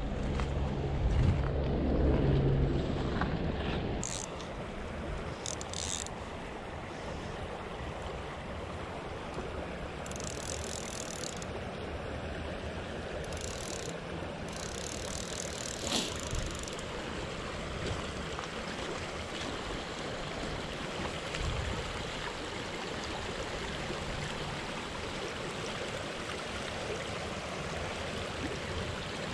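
Shallow creek water running over a gravel bed, a steady rushing, with wind buffeting the microphone for the first few seconds.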